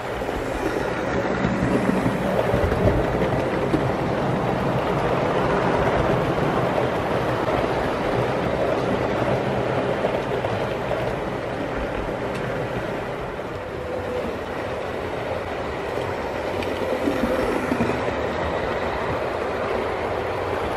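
OO gauge model train of passenger coaches running past on the track, a steady rattle of wheels on rail.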